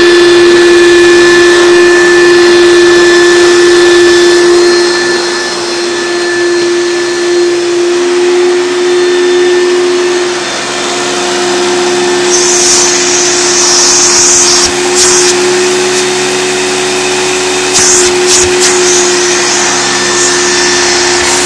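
Hoover Turbopower 2 U2462 single-speed upright vacuum cleaner running, its motor giving a steady whine. In the second half a hissing rush of air comes and goes.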